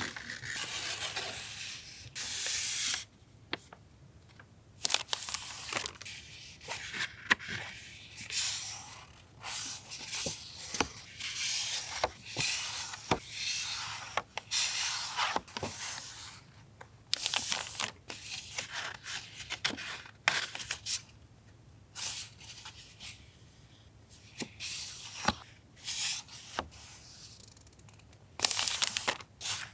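Paper and plastic packaging of stationery being handled: crinkling and rustling in irregular bursts, with a few light taps and clicks.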